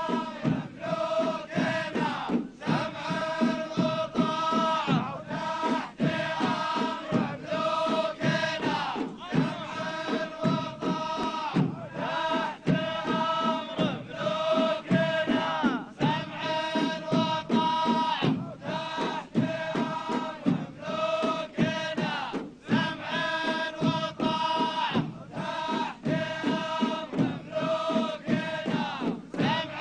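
Men's chorus chanting the verses of the Saudi ardah war dance in unison, in short repeated phrases, over a steady beat of the ardah's large drums.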